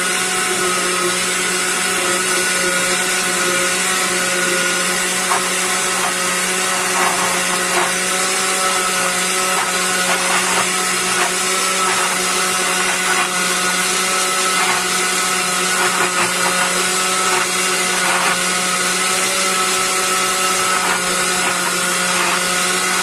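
Countertop blender motor running steadily, mixing a thick cake batter of Coca-Cola, butter and sugar while flour is spooned in. Faint light clicks come and go over it.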